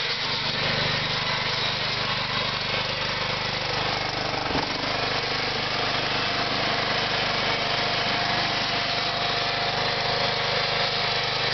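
John Deere LA110 lawn tractor's Briggs & Stratton Intek 19.5 hp OHV engine running steadily while the tractor drives across grass. A single brief click comes about four and a half seconds in.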